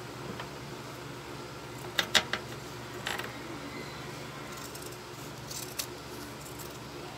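Scissors snipping at fabric or thread: three quick, sharp snips about two seconds in, then a few softer cuts and one more a little later, over a faint low steady hum.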